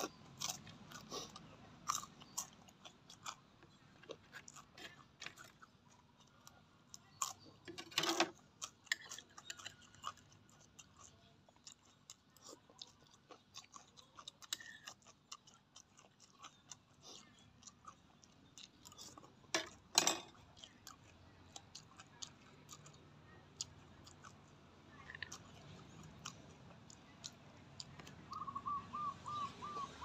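Close-up chewing and crunching of food in a person's mouth while eating spicy seafood papaya salad by hand, with many small crisp clicks and two louder crunchy bites, about eight and twenty seconds in.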